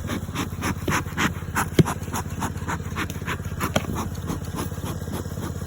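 A dog panting rapidly and steadily, about four to five breaths a second, with one sharp click a little under two seconds in.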